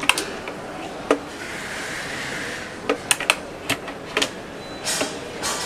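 Sharp clicks and knocks from the parts of a smart lock being handled and pressed into place on a door, with a brief scraping rustle in between. The knocks come one at a time, then several close together after about three seconds.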